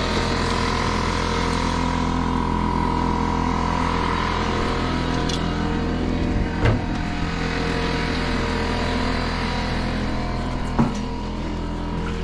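An engine running steadily at an even speed, with two short knocks or clanks in the middle and toward the end.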